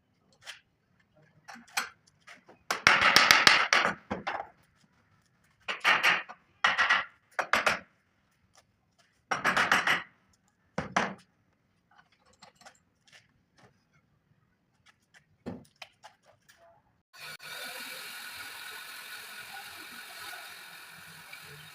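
Hand woodworking on chair timber: a series of separate rasping strokes of a tool on wood, each about a second long. About three-quarters of the way through, a steady, even noise starts and continues.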